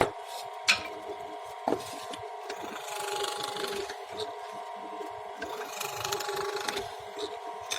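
Carpentry work on wood: a few sharp knocks in the first two seconds, then two longer scraping strokes about three and six seconds in, over a steady faint hum.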